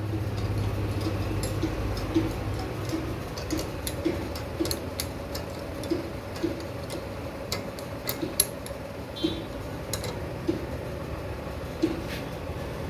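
Light, irregular metallic clicks and taps of small metal parts and hand tools being handled during turbocharger assembly, over a steady faint hum. A low drone fades out about two seconds in.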